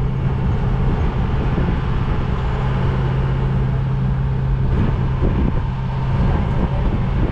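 Safari tram running along, a steady low hum from its drive over a rumbling road noise; the hum eases a little about six seconds in.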